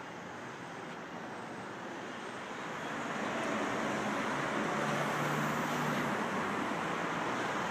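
Vehicle traffic noise, growing louder about three seconds in as a vehicle passes close by, with a faint low engine hum.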